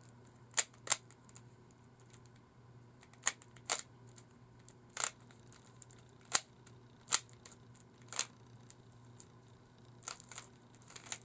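Plastic Rubik's cube layers being twisted by hand, about ten sharp clicks at irregular intervals as face turns snap into place.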